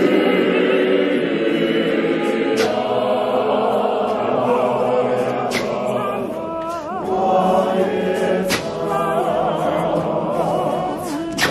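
Women's church choir singing a hymn in several voices, with vibrato. A sharp beat sounds about every three seconds.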